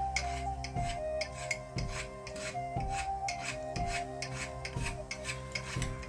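Small metal hand plane shaving a wooden handle in quick short strokes, about three a second, each a brief rasping scrape. Background music plays under it.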